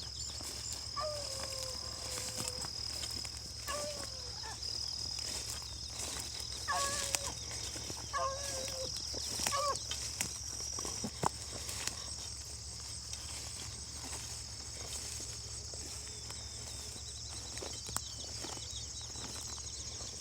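Faint baying of a beagle running a rabbit trail: about six drawn-out calls, each falling in pitch, in the first half, then only a steady high insect buzz.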